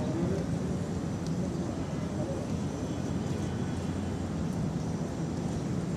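Steady low rumble of outdoor city background noise, with no single event standing out.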